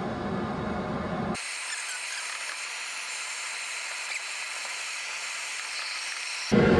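A low, even rumbling noise, then after a sudden cut about a second in, a steady high hiss that lasts about five seconds and stops abruptly.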